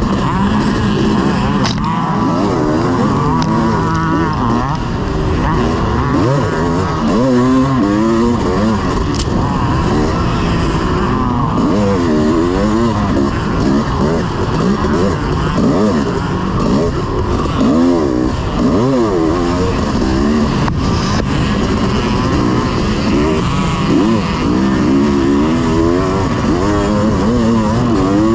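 1986 Honda CR500's two-stroke single-cylinder engine being ridden hard, its pitch rising and falling over and over as it revs up and drops back.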